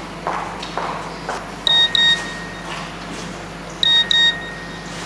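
A few footsteps on a hard floor, then a mobile phone beeping: two double electronic beeps about two seconds apart, the loudest sound here.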